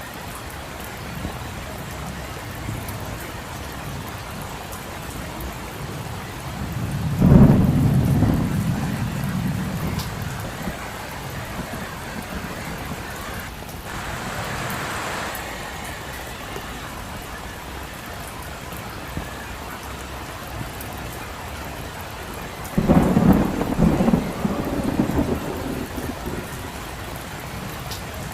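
Steady heavy rain falling on a street, with two rumbling peals of thunder, one about a quarter of the way in and a second, broken one near the end, each the loudest sound in its moment.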